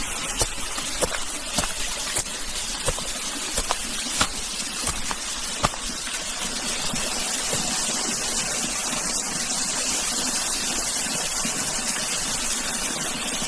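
A hiker's footsteps in chain spikes, one sharp step about every two-thirds of a second, on a rough trail over a steady rushing hiss.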